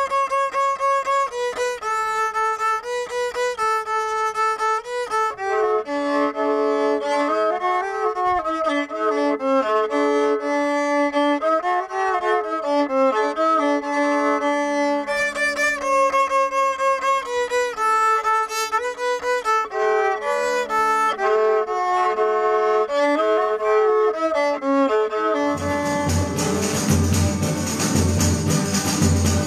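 Rabeca, the handmade Brazilian folk fiddle, bowed solo, playing a melody of short repeated phrases. Near the end it gives way to a louder ensemble of strummed guitars and violas with jingling percussion.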